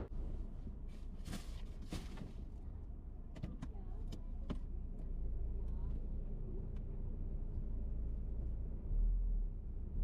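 Low steady rumble of a car heard from inside the cabin, with several sharp clicks and knocks in the first few seconds and a heavier low thump near the end.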